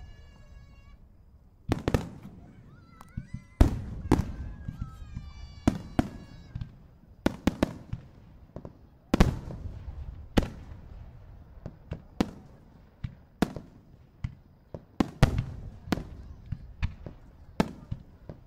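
Aerial firework shells bursting during a large display: a string of sharp, echoing booms at irregular intervals, some in quick pairs, the loudest about four, nine and fifteen seconds in.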